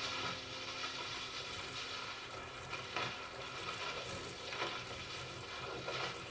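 Quiet crackling, hissing noise from live electronic instruments in an improvised set, with a few soft clicks and faint steady tones fading away at the start.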